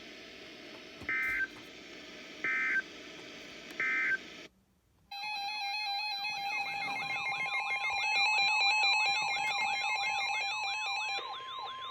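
Emergency Alert System data tones from a weather radio broadcast. First come three short bursts, the end-of-message signal that closes a warning. After a brief silence there are several seconds of warbling, chirping electronic tones, and near the end a single steady tone of about 1 kHz, the weather radio alert tone that heralds the next warning.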